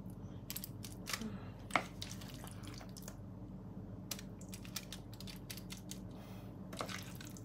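Scattered soft scrapes and taps of a plastic spoon scooping thick fish-curry paste into aluminium-foil cups, with light foil crinkling, the sharpest tap about a second and a half in, over a faint steady hum.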